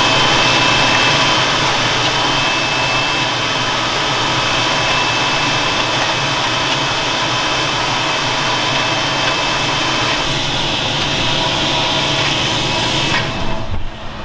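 Tractor pulling a Horsch Pronto 4 DC seed drill at work, the drill's seed blower fan whining steadily at a high pitch over the engine noise. The sound drops away near the end.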